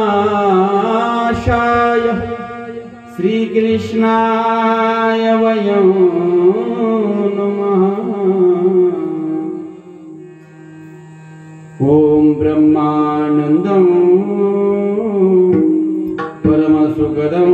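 A male Marathi kirtan singer sings a devotional phrase into a microphone, holding long notes that glide and waver in pitch over a steady low tone. The voice stops for a couple of seconds past the middle, leaving only the low tone, then comes back in with a few drum strokes.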